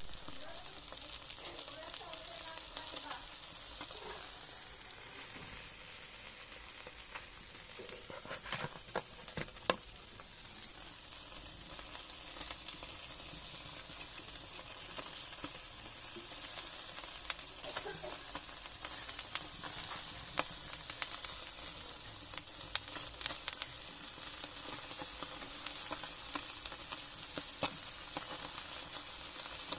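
Sardines sizzling on a grill: a steady high hiss with frequent scattered pops and crackles.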